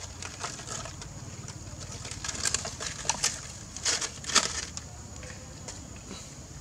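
Dry leaves and litter rustling and crackling as macaques move and pick through them, a cluster of crackles in the middle, loudest a little past four seconds in.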